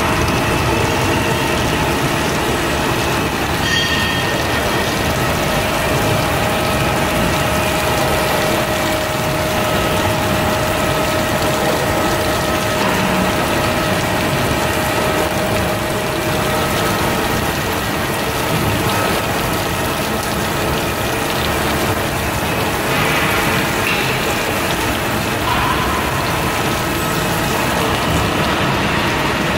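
Milling cutter on a large gantry milling machine cutting a metal CNC router frame under a spray of coolant. It makes a steady, loud mechanical grinding clatter with the hiss of the spray and a faint whine that comes and goes.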